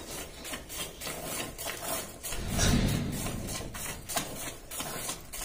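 Cow being milked by hand into a plastic bucket: milk squirts into the bucket in a steady rhythm, a few a second, one with each squeeze of the teats. A louder low rumble comes about halfway through.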